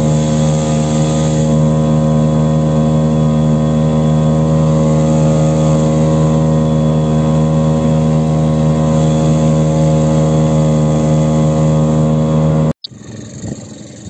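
Boat engine running at a steady speed with a constant pitch, then cutting off abruptly near the end.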